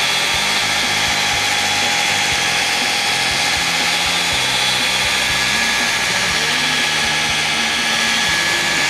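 Electric car polisher running at its lowest speed with a steady whine, its pad moved back and forth under light pressure to spread an abrasive cutting compound over a car's painted hood.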